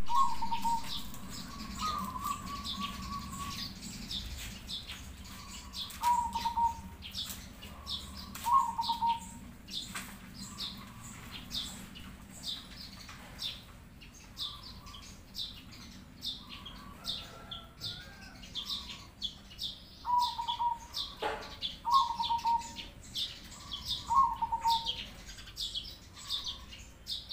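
Zebra dove (perkutut) cooing in short, rolling phrases: a few in the first ten seconds, a long pause, then several more near the end. Small birds chirp busily in a higher pitch throughout.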